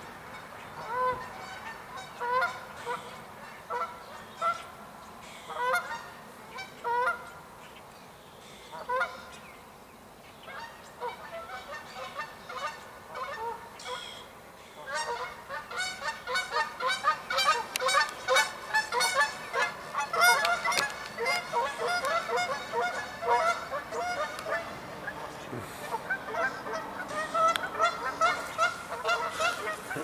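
Canada geese honking: single honks a second or two apart at first, a quieter stretch, then from about halfway a fast, continuous run of honks.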